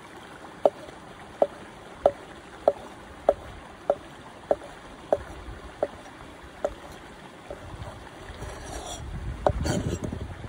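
Large kitchen knife chopping cheese on a wooden cutting board: about ten sharp knocks of the blade on the board, evenly spaced a little over half a second apart. Near the end the blade scrapes across the board, gathering the chopped pieces, with one sharper knock.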